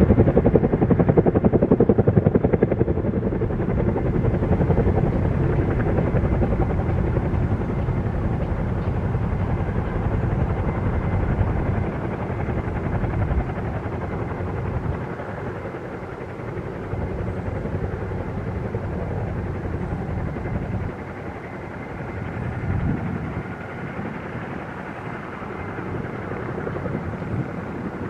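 Distant jet engine rumble of a Boeing 737 airliner on final approach, a steady noisy drone that is loudest at first and fades gradually.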